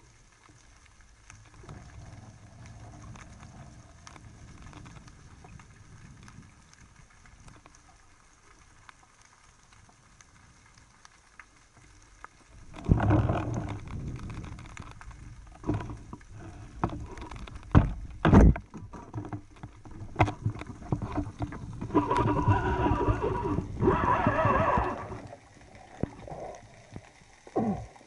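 Underwater noise picked up by a speargun-mounted camera: a faint low rumble, then from about 13 seconds in a loud rush of moving water with scattered knocks. Two sharp knocks come around 18 seconds in, and a second loud rush follows a few seconds later.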